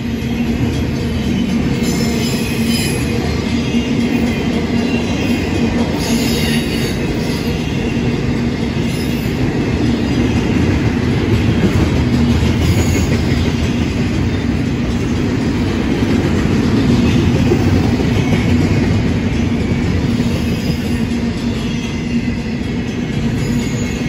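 Union Pacific double-stack intermodal container cars rolling past: a loud, steady rumble of steel wheels on the rails with a constant low hum, and a couple of brief higher-pitched patches of wheel noise early on.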